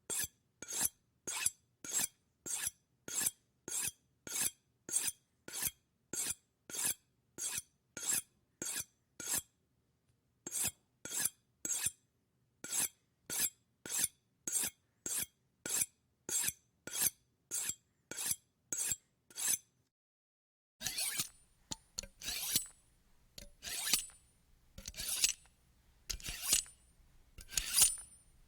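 Knife blade being sharpened: quick, evenly spaced scraping strokes, about two a second, with a short pause partway through. About two-thirds of the way in the strokes stop, then give way to slower, longer and louder scrapes.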